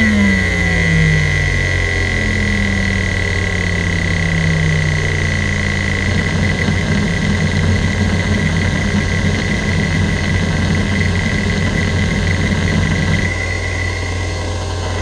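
Western Digital Caviar 205AA IDE hard drive seeking under a benchmark. The head actuator buzzes in a rapid seek pattern whose pitch falls as the seeks get longer. About six seconds in it turns into irregular random-seek chatter, and near the end it eases into lighter track-to-track seeking, all over a steady high whine.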